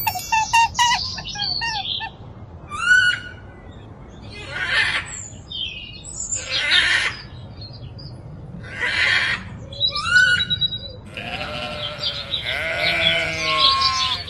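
A run of farm animal calls: short bird chirps at first, then three harsh squawking calls about two seconds apart, then a long wavering bleat near the end.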